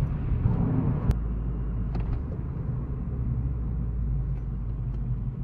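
2015 Subaru WRX's turbocharged flat-four engine running under way, with road noise, heard from inside the cabin as a steady low rumble. A single click comes about a second in.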